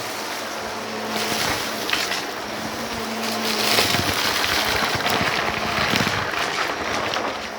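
Close-miked vacuum cleaner running over a rug with a steady motor hum, its suction rush swelling and easing with the strokes as it picks up a powder mix.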